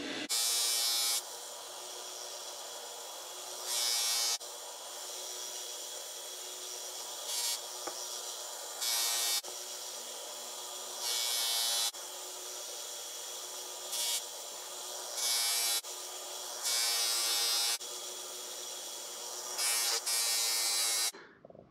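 Small bench grinder motor running steadily while a steel rocker arm is pressed against its spinning wheel in about nine short passes of a second or so, each a hissing scrape. The passes are grinding out wear grooves worn into the cam-contact pad of a Honda VTEC rocker arm. The grinder cuts off near the end.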